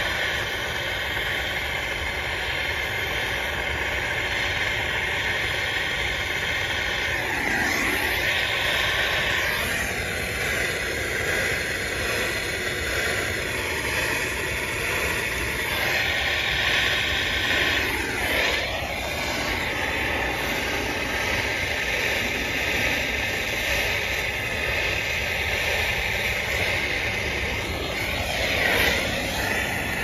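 Handheld gas torch flame burning with a steady rush while it heats a copper refrigerant-line joint for brazing. The rush brightens and sharpens briefly three times, about a quarter, half and nearly all the way through.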